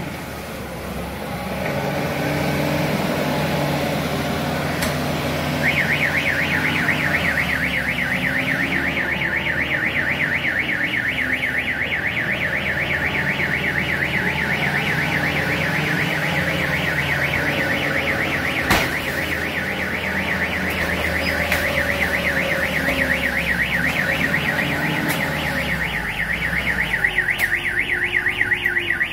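Forklift engine running as it drives and lifts. A fast warbling electronic alarm starts a few seconds in and keeps sounding steadily, with one sharp knock just past the middle.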